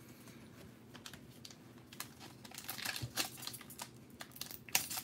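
Foil wrapper of a 2020 Prizm hobby card pack crinkling and crackling as it is torn open by hand. The crackle starts about two seconds in and gets denser toward the end.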